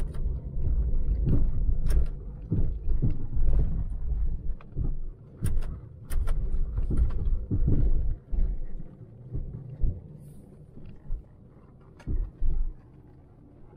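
Cab interior of a 1998 Jeep Grand Cherokee rolling slowly: low engine and road rumble with irregular knocks and clicks, quietening over the last few seconds.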